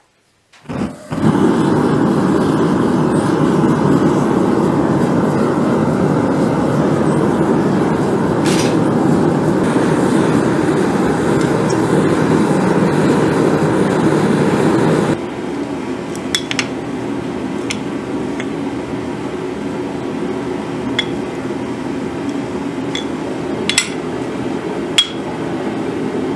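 Solid-fuel forge fire being blown, a loud steady rushing noise that starts suddenly about a second in. About halfway through it drops abruptly to a quieter steady noise with scattered light metallic clinks.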